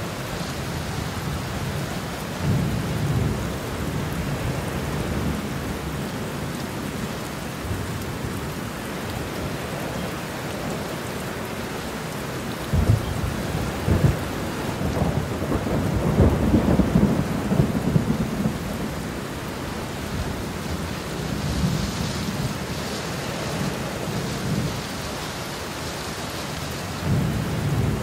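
Steady rain with thunder rumbling low several times. Two sharp cracks come a little before the middle, and the longest, loudest roll follows just after.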